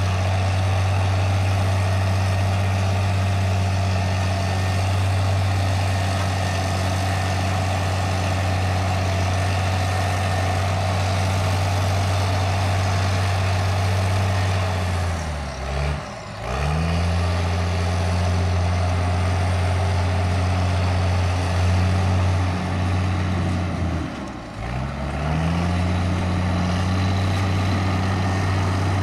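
Caterpillar 816 soil compactor's diesel engine running steadily at working revs. The engine speed drops briefly and picks back up twice, about halfway through and near the end.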